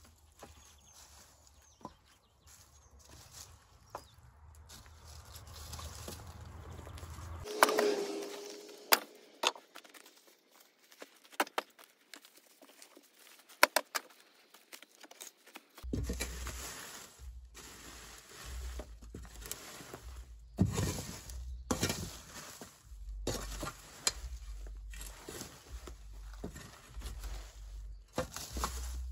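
Small spade scraping and digging through broken bricks and dirt, with scattered sharp knocks of brick on brick and spade.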